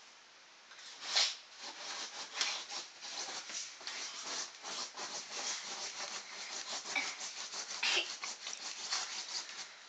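A small dog's paws scratching and digging rapidly at bed sheets: a fast, continuous run of scraping, rubbing strokes on fabric, starting about a second in and stopping near the end.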